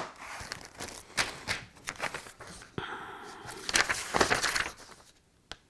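Rustling and light clicking as plastic-bagged plastic kit parts are handled and set down and a paper instruction sheet is picked up and shuffled; the handling sounds stop about five seconds in.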